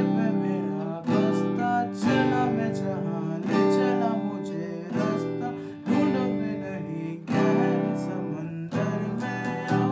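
Steel-string acoustic guitar strummed, with accented chord strokes about once a second and the chords ringing between them.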